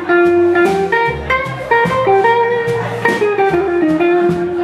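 Live blues band playing an instrumental passage: a lead line of held, bending notes over upright bass and drums.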